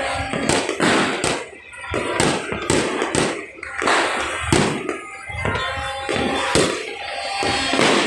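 Fireworks exploding: about a dozen sharp bangs at irregular intervals, some in quick succession. Music plays underneath.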